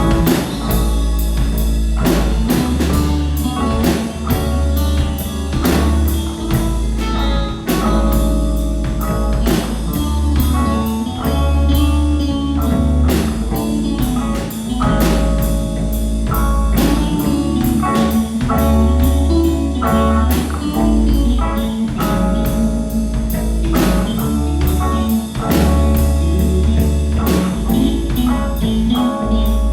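A rock band playing with drum kit and guitar over a heavy bass line, with regular drum hits throughout.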